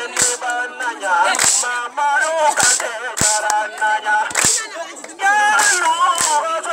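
Voices singing a dance song, punctuated by sharp percussive cracks about every second or so.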